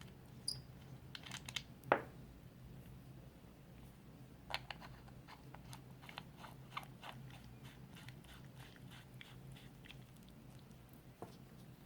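Small clicks, taps and crackles of hands handling the plastic casing and parts of a vape mod during reassembly, with a sharper click about two seconds in and a run of quick clicks from about four and a half seconds, over a faint steady low hum.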